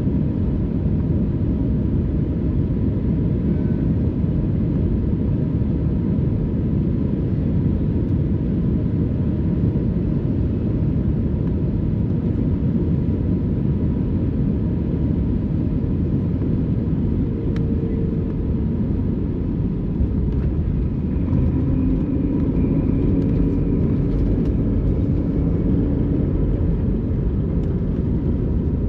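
Steady cabin rumble inside an Airbus A321neo airliner, from its engines and the rush of air or rolling, with a faint steady high tone above it.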